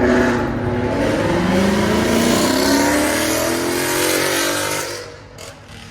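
A car's engine and exhaust accelerating hard, the engine note climbing over several seconds, then falling away sharply about five seconds in.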